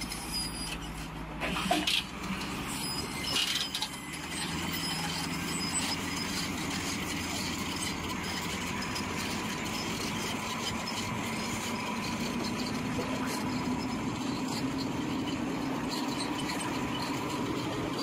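Heavy diesel engines of a Caterpillar bulldozer and a MAZ truck running steadily during a cable tow, the engine note rising slightly about twelve seconds in. A few sharp knocks in the first few seconds.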